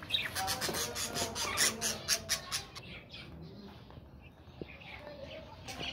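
Rustling and crackling of a cloth cover and plastic sheeting pulled off a wire chick cage, busiest over the first two or three seconds. After that, faint chirps and clucks of chickens feeding.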